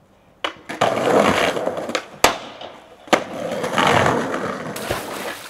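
Skateboard wheels rolling over paving stones, the noise swelling and fading, with two sharp clacks of the board about two and three seconds in.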